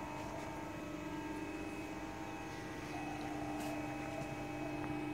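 Steady hum of running hydraulic press brakes, with several steady tones, growing slightly louder about three seconds in. A faint click about three and a half seconds in.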